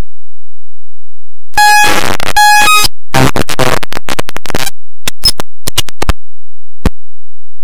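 Harsh electronic glitch noise, the kind a corrupted stream gives. Blank silence breaks into two bursts of buzzing noise with a steady pitched tone, then choppy stuttering noise, then a few scattered sharp clicks.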